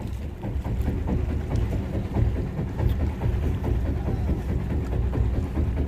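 A fishing boat's engine running, a low rumble with a quick pulsing beat.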